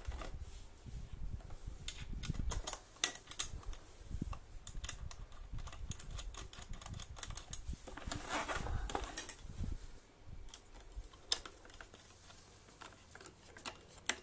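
Scattered light clicks and knocks of vintage Hoover vacuum cleaner parts, the handle and its bolts, being handled, with a louder knock about three seconds in and a short rustle about eight seconds in.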